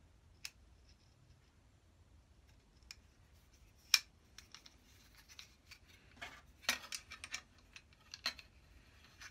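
Small metal clicks and scrapes of a sliding bevel gauge being reassembled by hand: its steel blade, brass-ended handle and hexagon locking nut and washer knocking and sliding together as the lock is set. A few lone clicks, the sharpest about four seconds in, then a busier run of clicks and scrapes in the last three seconds.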